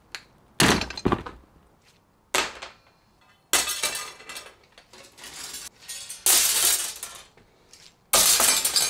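Removed metal hydraulic brake lines thrown down in handfuls onto a concrete floor: about five separate clattering, jangling crashes of thin metal pipe and fittings, the later ones longer and louder.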